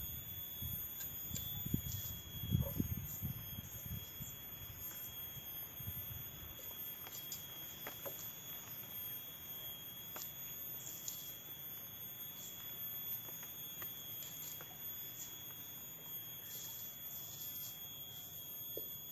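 Quiet cutting and handling of water spinach stems with a curved sickle: a few faint snips and rustles, over a steady high-pitched whine throughout.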